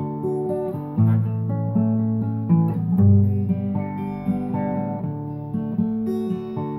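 Solo acoustic guitar playing an instrumental passage, strummed chords changing every second or so.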